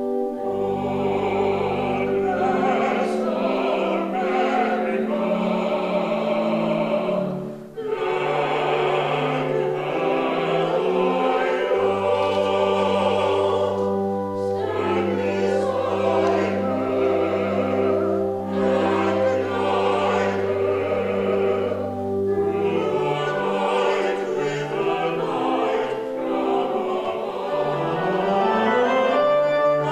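Singing with organ accompaniment, the organ holding long chords and a low sustained bass note under the melody, with a brief break about a quarter of the way in.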